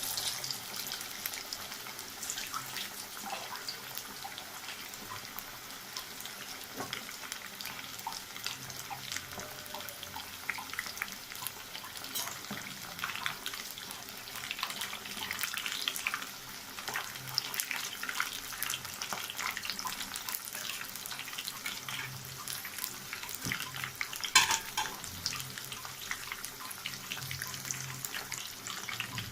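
Oat-coated chicken legs frying in hot oil: a steady sizzle full of small crackles, with one sharper pop about 24 seconds in.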